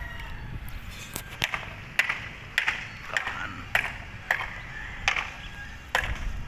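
Footsteps on dirt ground at walking pace, about ten short crunching steps, over a low steady background rumble.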